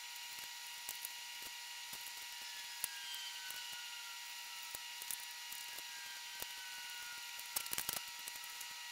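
Faint handling sounds of masking tape being torn and pressed onto a plastic airsoft rifle: scattered light clicks and a short crackly cluster near the end, over a steady faint hiss.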